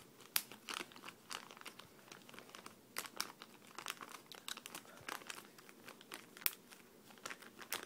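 Plastic soft-bait lure packaging crinkling as it is handled, a run of irregular small crackles.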